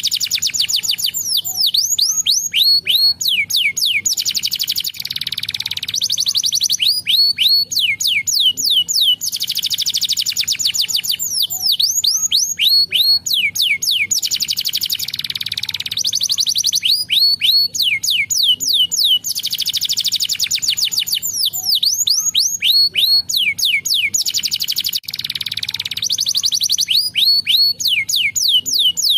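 Domestic canary singing: runs of fast descending whistled notes alternating with rapid, dense trills, the phrases following one another every few seconds without a break.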